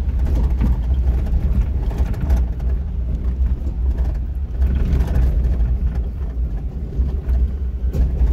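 Off-road 4x4 driving slowly over a rough, rocky dirt trail: a steady low rumble from the engine and tyres, with scattered small knocks and rattles as it bumps over rocks.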